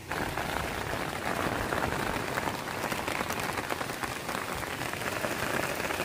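Dense, steady patter of falling water that starts suddenly.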